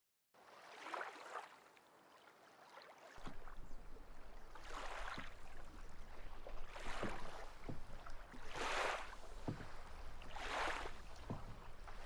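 Wooden paddle stroking through lake water from a small wooden boat, a swish about every two seconds, with a steady low hum underneath from about three seconds in.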